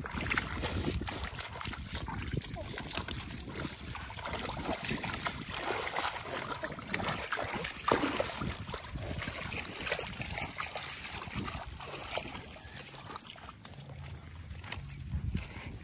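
Water sloshing and splashing as hands and knees move through shallow muddy water, with many small irregular splashes.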